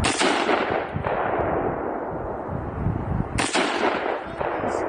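Two rifle shots about three and a half seconds apart, each a sharp crack followed by a long rolling echo that fades away slowly.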